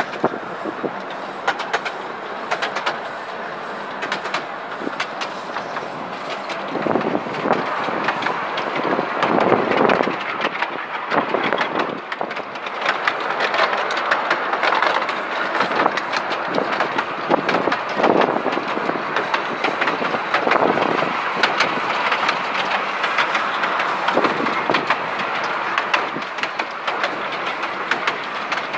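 Ride-on miniature railway train running along its track, heard from an open passenger car: a steady rumble, louder at times, with many sharp clicks.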